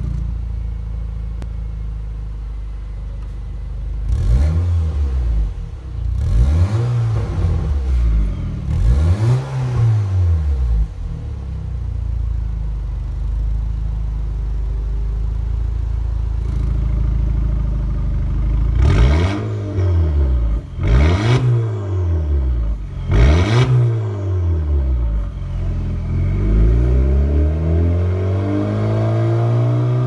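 Audi A5 B8 2.0 TFSI turbocharged four-cylinder running through an Armytrix cat-back variable (valved) exhaust with quad tips, stationary and free-revved. It idles, then gives three quick blips of the throttle. It settles back to idle, gives three more blips, and ends with a longer, slower rev that is held and falls back.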